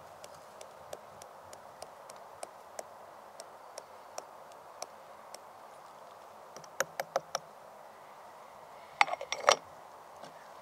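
Aluminium moka pot parts clinking and knocking as the pot is assembled by hand: faint scattered ticks at first, a few sharper clicks about seven seconds in, then a louder burst of metal clanks about nine seconds in as the filter funnel goes into the base.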